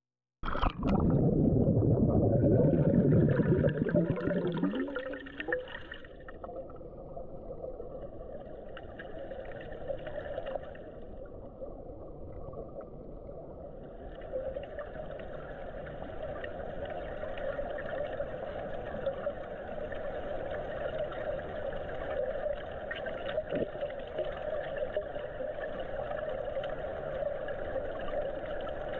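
Muffled underwater sound in a swimming pool heard through a submerged camera: a loud rush of water for the first few seconds, then a steady hum with faint water noise.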